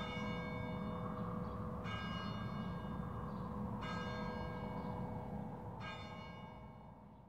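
A single church bell tolling slowly, four strokes about two seconds apart, each ringing on into the next, over a low background rumble. The tolling fades out near the end.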